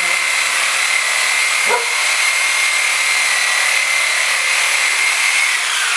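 Corded DeWalt DW303M reciprocating saw running steadily, its blade sawing through a frozen turkey, with a high motor whine. The whine sags in pitch near the end as the saw slows.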